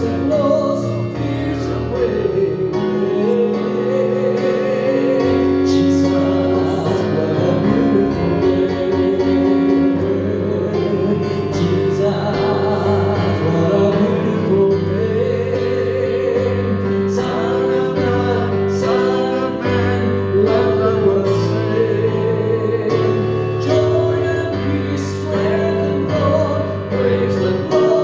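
Live church worship music: a band playing slow, held chords over a sustained bass, with singing.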